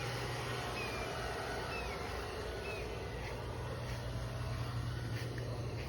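A steady low hum, like a motor or distant traffic, with short high chirps repeating about once a second over it, as from a bird.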